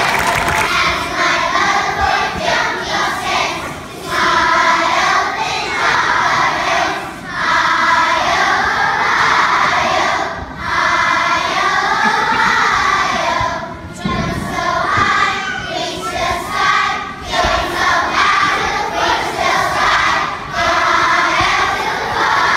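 A large children's choir singing together, in phrases of a few seconds with short breaks between them.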